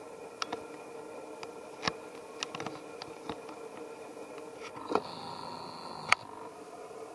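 Scattered light snaps and taps from twigs and branches as macaques climb through a tree, the sharpest about six seconds in, over a steady low hum. A steady high tone sounds for just over a second about five seconds in.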